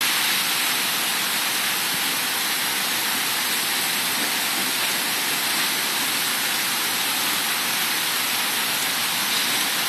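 Heavy rain pouring down on trees, a steady even hiss.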